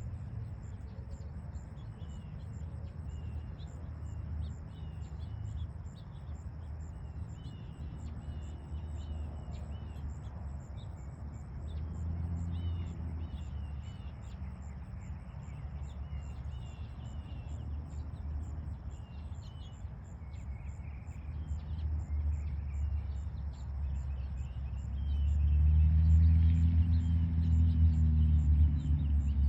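Outdoor background after the siren test: small birds chirping over a steady low rumble of traffic. A vehicle engine grows louder about 25 seconds in and stays loud to the end.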